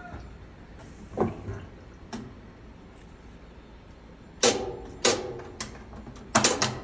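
A series of sharp knocks and clunks from hard objects being handled, a few light ones early, then louder ones about four and a half seconds in and a quick cluster of three near the end, some with a brief ringing tail.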